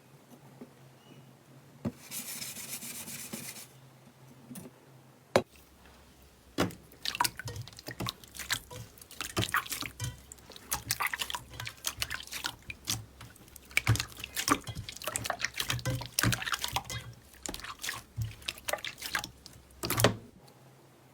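Slime being squeezed and pressed by hand, giving many irregular clicks and pops that come thick and fast from about six seconds in, with a short hiss a couple of seconds in.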